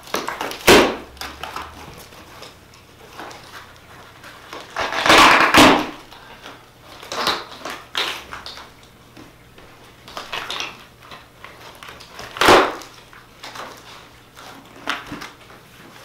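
Large corrugated cardboard shipping box being handled and pulled apart: cardboard rustling and scraping, with a sharp knock near the start, a longer burst of scraping about five seconds in, and another knock about twelve seconds in.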